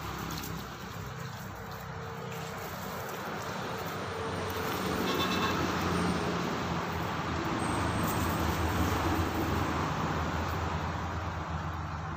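A motor vehicle passing on a road: a broad rumble of engine and tyre noise that swells to its loudest a little past the middle and fades toward the end.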